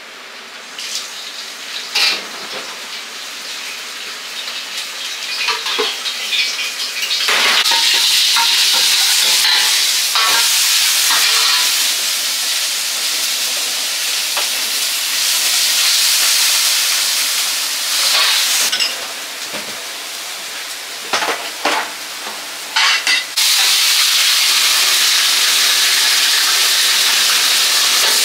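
Stir-frying in a wok: food sizzling loudly in hot oil, with scattered clanks of a metal ladle against the wok. The sizzle builds about a quarter of the way in, eases for a few seconds past the middle, then comes back suddenly near the end.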